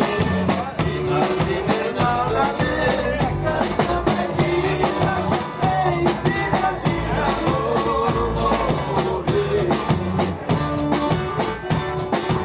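Gaúcho vanera band music: a gaita (accordion) melody over bass and drum kit, with a steady dance beat.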